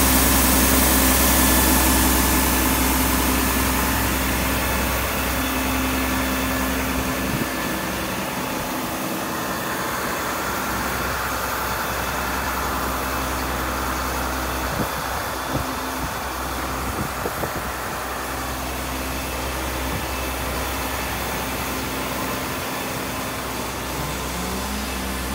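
International DT-466 turbo diesel running steadily at pump speed, driving the Hale fire pump, with the hiss of a water stream from the discharge nozzle, loudest in the first few seconds.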